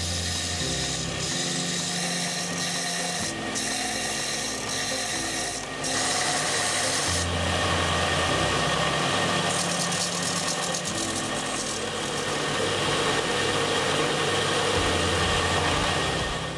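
Belt sander running while the end of a steel drill rod is ground square against the moving abrasive belt: a steady grinding, rubbing hiss that gets louder about six seconds in.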